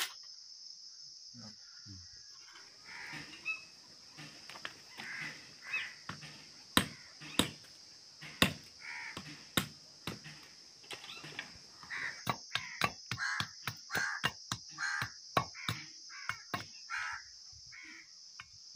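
Sharp knocks of a curved billhook blade chopping and trimming a thin wooden stick against a wooden stump. The knocks are few at first and come quickly, several a second, from about two-thirds of the way in. Crows caw repeatedly throughout.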